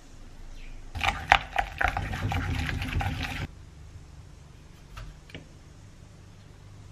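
Wooden spoons stirring wet minced shrimp paste in a ceramic bowl: a wet, squelching mix with many clicks of spoon against bowl, cut off abruptly after a couple of seconds. Later, a couple of faint taps of a knife scoring tomatoes on a wooden cutting board.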